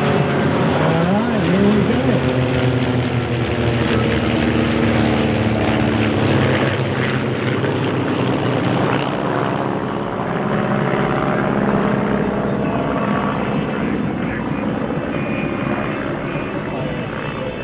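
Several Van's RV single-engine propeller airplanes flying by in formation, their piston engines droning together in layered tones, with the pitch sliding as they pass about a second or two in.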